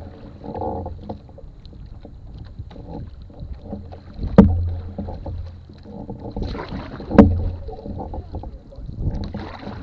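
Canoe paddling heard from the hull of a metal canoe: the wooden paddle knocks sharply against the canoe twice, a few seconds apart, each knock ringing briefly, with the swish of the paddle through the water between strokes.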